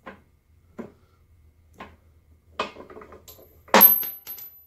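Steel parts of an arbor press being handled: a few light knocks, a scraping clatter as the slotted press plate is moved, then a loud metallic clank near the end with a high ring hanging after it.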